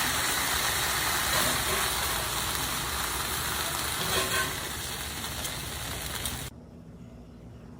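Oil-coated chicken breasts sizzling as they sauté in a frying pan, with a few clicks about four seconds in. The sizzle cuts off abruptly about six and a half seconds in, leaving only a faint hiss.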